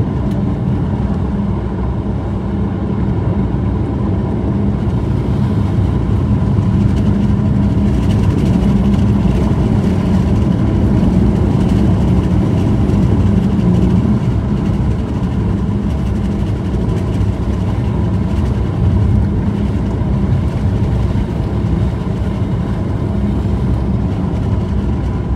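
Steady low rumble of a moving vehicle heard from inside the cabin: tyres on a gravel road together with engine noise.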